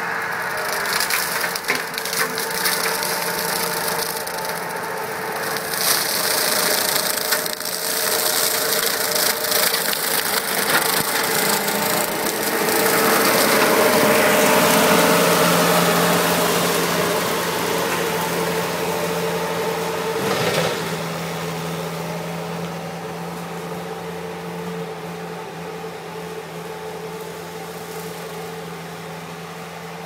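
Bobcat T190 compact track loader's turbo diesel running hard while its Brushmonster rotary cutter shreds brush and saplings, with dense crackling and splintering of wood over a steady engine and cutter drone. The sound is loudest about halfway through as the machine passes close, then eases to a steadier drone that fades as it works farther off.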